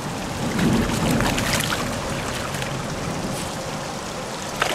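Steady rush of creek water, with a few small splashes about a second in from a hooked steelhead at the surface.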